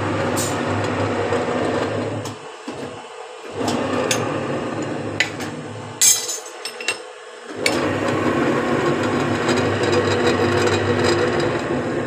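Bar-bending machine's motor running with a steady hum that cuts out twice for about a second, with metallic clicks and a sharp clank about six seconds in as steel bar is handled on the bending disc.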